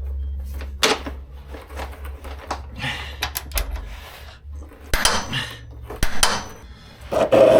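Metal tools and parts clinking and clanking: a few sharp metallic knocks, a quick run of light clicks about three and a half seconds in, and the loudest clatter near the end, over a low steady hum.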